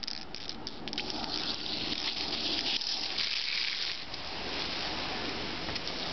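Garden hose spray nozzle jetting water onto stone paving: a steady hissing spatter, with a few sharp clicks in the first second or so.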